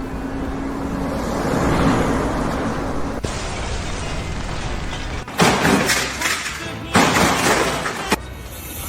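Two loud crashes, each about a second long and about a second and a half apart, like something breaking or falling.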